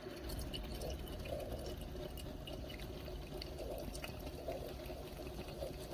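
Liquid trickling and dripping steadily, with faint small ticks.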